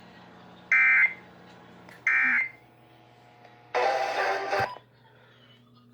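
Emergency Alert System (SAME) end-of-message data bursts: the last two of three short, harsh buzzing bursts, each about a third of a second long and a second apart, marking the close of a monthly test that carried no voice message. About a second and a half later comes a hissy burst of noise lasting about a second.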